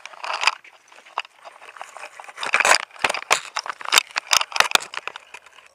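Handling noise from a handheld camera being gripped and moved: fingers and clothing rub and knock against its body and microphone, an irregular run of sharp knocks and rustles that grows denser and louder about halfway through.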